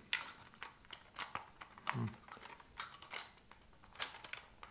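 Irregular sharp plastic clicks and knocks as the two plastic housing shells of a Siemens hand mixer are pressed and worked together, the internal hinges and parts being pushed into place.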